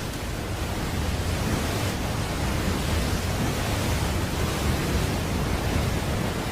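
Steady, dense rushing noise with a heavy low rumble underneath, a sound effect from an animated battle.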